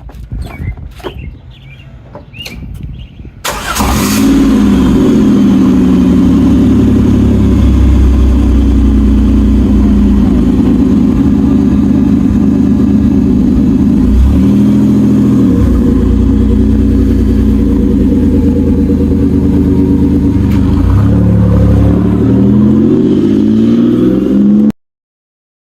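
A few light knocks, then a car engine comes in abruptly about three and a half seconds in and runs loud, its revs dipping and rising around the middle and climbing again near the end, before cutting off suddenly. The car is most likely the Pontiac Fiero on its way out on a drive with all four brakes working.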